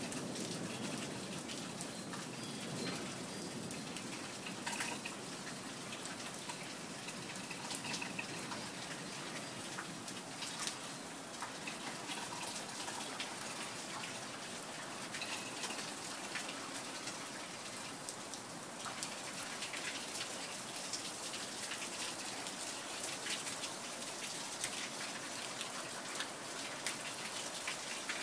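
Steady rain falling, an even hiss with scattered sharp ticks of individual drops landing close by. The last of a low thunder rumble fades away right at the start.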